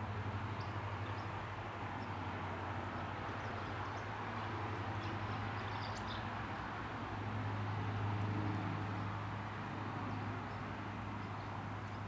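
Steady low rumble of distant traffic, with a few faint, short high chirps from small birds now and then.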